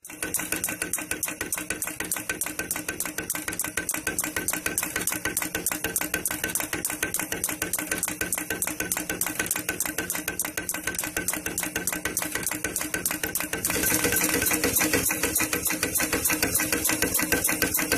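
Automatic pearl attaching machine setting pearls onto fabric: a fast, even run of short metallic clacks from its punching head. The clacking gets louder about three-quarters of the way through.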